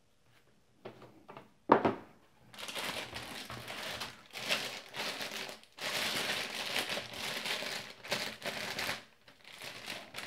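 Plastic packaging crinkling and rustling as it is handled, in uneven bursts over several seconds, after a few light clicks.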